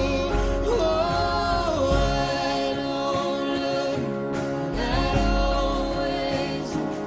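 Musical-theatre song: a singing voice holding long notes that slide between pitches, over a full orchestral accompaniment.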